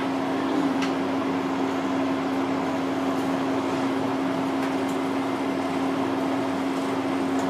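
Steady mechanical room hum with one steady low tone running through it, with a faint click about a second in.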